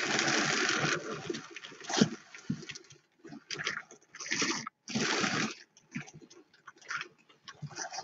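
Hand-cranked Louet Classic drum carder turning in spurts, its wire carding cloth rasping through wool roving as the fibre is fed onto the drum, with small clicks between the strokes. The longest stretch of rasping comes in the first second.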